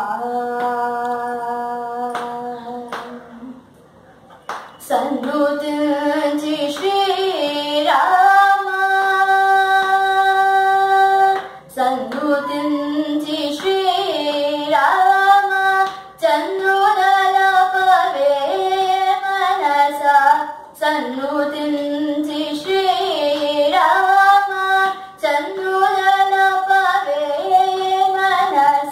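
A young woman singing solo and unaccompanied, holding long notes and sliding in ornamented steps between pitches, with a short pause for breath about three seconds in. Light hand taps keep the beat under the voice.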